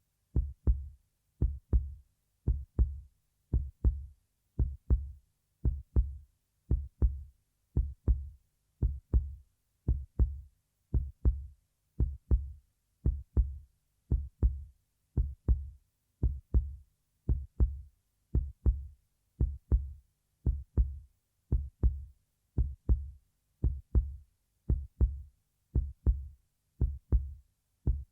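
Heartbeat sound effect: a steady lub-dub, each beat a low double thump, repeating about once a second with silence between beats.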